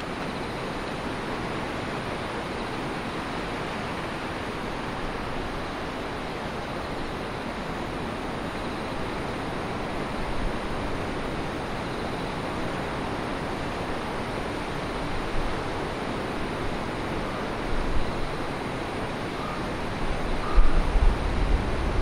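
Heavy typhoon surf and storm wind: a steady rush of breaking waves. Gusts of wind buffet the microphone in the last two seconds or so.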